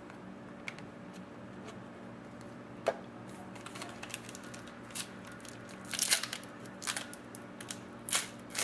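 Trading cards and their plastic being handled: a sharp click about three seconds in, then repeated short rustling and crinkling that comes more often toward the end, over a steady low hum.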